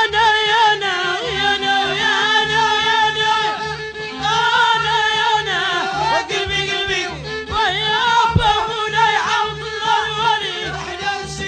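A Moroccan Middle Eastern-style song with a wavering, ornamented melody line over a steady, evenly repeating low beat.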